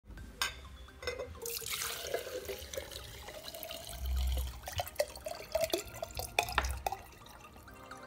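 Gasoline poured from one glass jar into another, splashing and trickling. There are a few sharp clicks of glass and a dull low thump about four seconds in.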